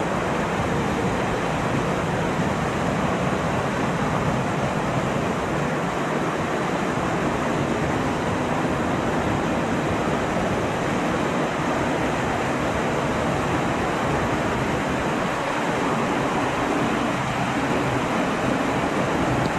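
Water pouring down a narrow rock tunnel in an old coal mine, a steady rush close to the microphone.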